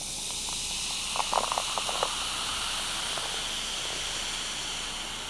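Carbonated ginger ale fizzing in a cup: a steady hiss of bubbles, with a short cluster of sharp crackles about a second in.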